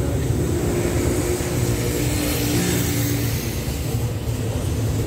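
Railway diesel engine running with a steady low rumble.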